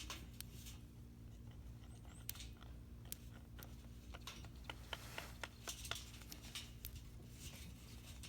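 Light handling noise: short rustles and scattered sharp clicks over a low steady hum.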